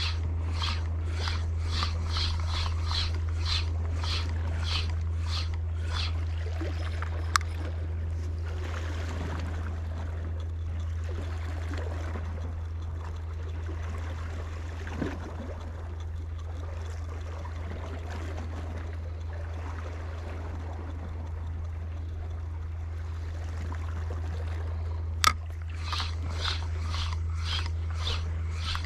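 Daiwa Saltiga spinning reel cranked while the rod is jerked in a jigging retrieve, a rhythmic swish about twice a second. It stops after a click about seven seconds in, leaving faint water noise with a steady low hum. A sharp click comes near the end, and the rhythmic retrieve starts again.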